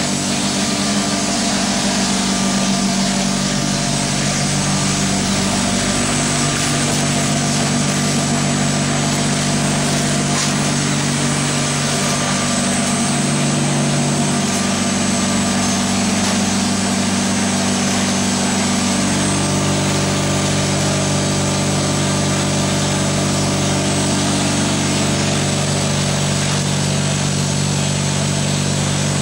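Ritmo XL plaster spraying machine running: a steady electric motor and pump drone with several humming tones that step slightly in pitch now and then.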